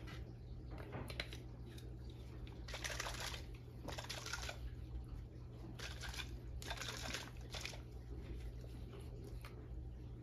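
A bottle of stencil ink being shaken by hand, a faint swishing of liquid in several separate rounds, over a steady low hum.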